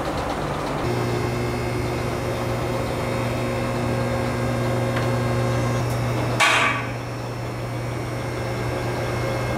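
A steady electrical hum starting abruptly about a second in, with a short burst of noise a little past six seconds.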